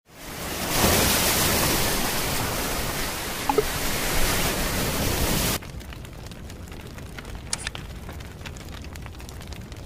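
Sea surf washing over rocks: an even rushing noise that fades in over the first second and cuts off abruptly about halfway through. After it, a faint hiss with a few sharp clicks.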